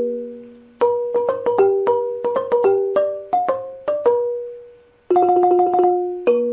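Instrumental music: a slow melody of struck, piano-like notes, each ringing and fading away. The music dies down just before a second in and again just before five seconds, then picks up with a new held chord.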